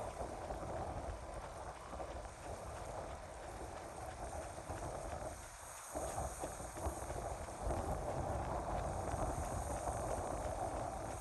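Wind gusting on the microphone over the steady wash of small lake waves, with a brief drop in the sound about six seconds in.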